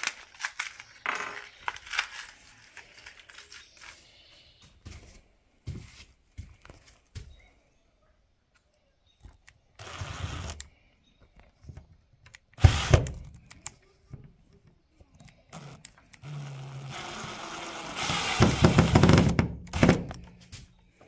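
Milwaukee cordless drill driving small screws through a steel corner brace into a wooden frame, in a few short runs, the longest and loudest near the end. Handling clicks and rustling of the parts come first.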